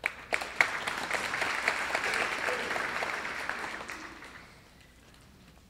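Audience applauding: a round of many hands clapping that starts suddenly and dies away about four seconds in.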